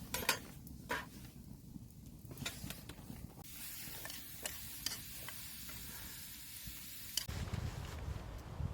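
Cooking over a wood fire: food sizzling on a hot grill plate, with sharp crackles and clicks, the sound changing abruptly a couple of times.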